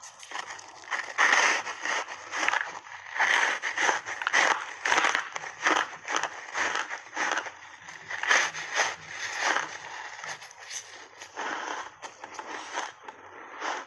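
Close-miked crunching of a frozen ice bar coated in matcha and milk powder being bitten and chewed: a dense, irregular run of crisp crunches.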